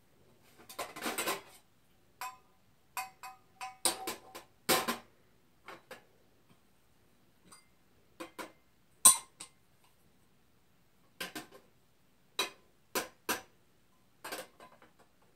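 Small tin cups, lids and teapot of a toy tea set clinking and clattering as they are picked up and set down, in scattered knocks, some with a short metallic ring; the sharpest clink comes about nine seconds in.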